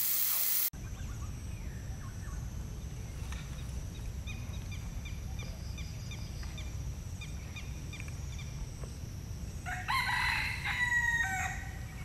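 A rooster crows once, about ten seconds in, the loudest call. Before it, a small bird chirps repeatedly over a low steady rumble; at the very start, water from a tap pours into a concrete sink and cuts off abruptly.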